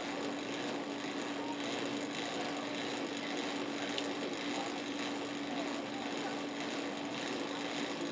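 Aircraft propeller and its drivetrain spinning steadily during a ground run, a continuous mechanical whirr with a steady hum.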